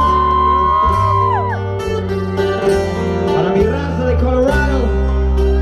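Live band music through a large outdoor PA: amplified guitars over a deep bass line. A long high note is held for about the first second and a half, then slides down.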